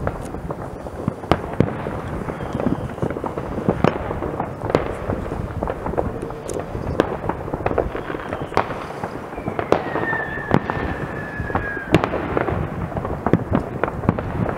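Many fireworks going off across a town at once: a continuous rumble and crackle of distant bangs, with sharper, nearer reports scattered through it. About ten seconds in, a high whistling firework sounds for about two seconds, its pitch falling slightly.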